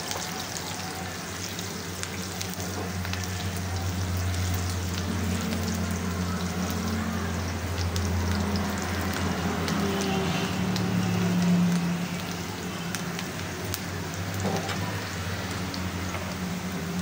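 Sliced onions and cumin seeds sizzling in hot oil in a frying pan, stirred with a spatula that scrapes the pan now and then. A low steady hum runs under the frying through the middle.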